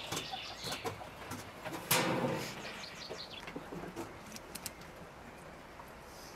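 Birds calling, with a dove cooing, over light taps and dabs of a pastry brush against a metal pie pan. There is a louder knock about two seconds in.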